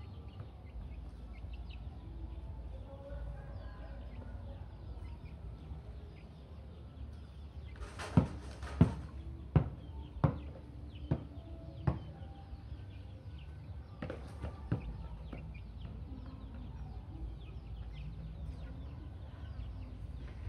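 Volleyball being hit: a run of six sharp thumps less than a second apart, about eight seconds in, and two more a few seconds later. Chickens cluck and small birds chirp throughout.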